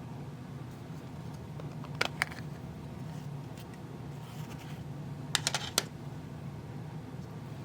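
Small sharp clicks from parts being handled during the teardown: two about two seconds in, and a quick run of four or five a little after five seconds, over a steady low hum.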